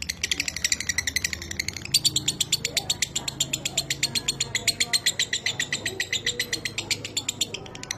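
Lovebird's long, unbroken chattering song (ngekek): a rapid run of high, dry chirps repeated many times a second.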